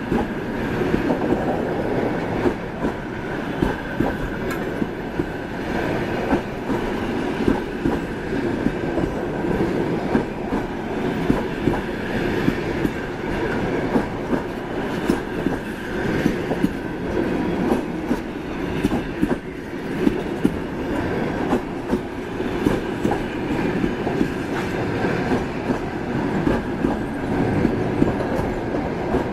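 Passenger coaches rolling past on the rails: a steady rumble of wheels, with frequent sharp clacks as the wheels cross rail joints.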